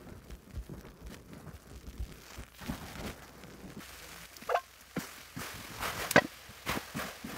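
Soapy sponges squeezed by gloved hands in thick suds: soft wet squishing and crackling of foam. About four seconds in this gives way to sharp taps and clicks as powder is shaken and tapped out of a can.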